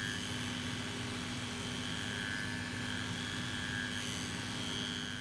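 Shoe-repair trimming machine running steadily, its high-speed carbide cutter trimming the edge of a leather boot sole.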